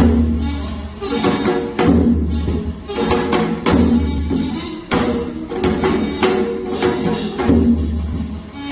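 Korean traditional folk-song accompaniment: a janggu (hourglass drum) beats the rhythm with deep booming strokes and sharp stick strokes, while a piri (double-reed pipe) plays held notes over it. The heaviest drum strokes fall at the start, about two seconds in, near four seconds and about seven and a half seconds in.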